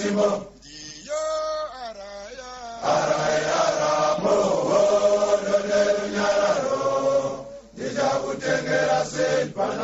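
A group of men's voices chanting a song together, a single voice carrying it briefly before the fuller group sound comes in about three seconds in, with a short break near the end.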